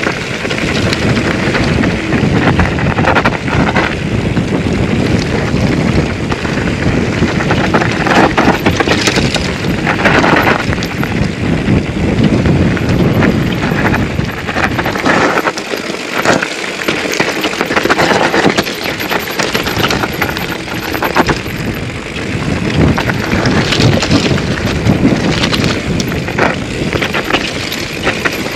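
2008 Intense Tracer full-suspension mountain bike riding down a rocky trail: a continuous clatter of tyres over loose stones, with the chain and frame rattling at each knock.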